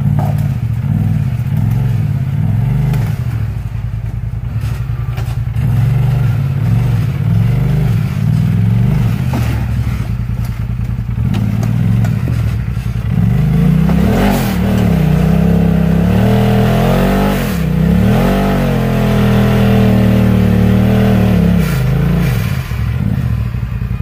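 Side-by-side UTV engine revving in repeated rising and falling surges as the machine crawls up a rock ledge, with scattered knocks in the first half. The revving grows louder and higher-pitched over the second half, with several sharp pitch swoops.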